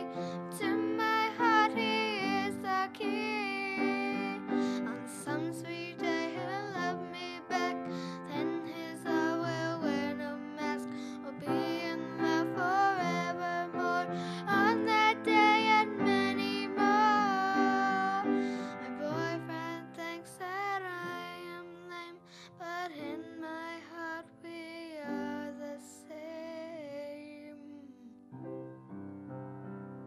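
A young girl's voice singing a gentle original song over piano accompaniment. The voice stops about two seconds before the end, leaving the piano playing alone.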